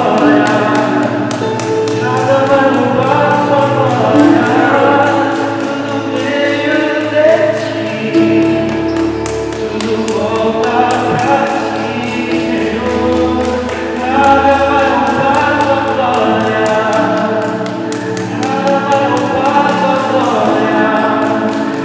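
Live gospel worship music: voices singing long, sustained lines over held keyboard chords, with a steady light percussive beat.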